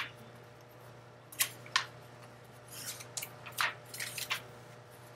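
Paper pages of a hardcover picture book being handled and turned: a series of short, crisp rustles and flicks, about seven in the middle few seconds.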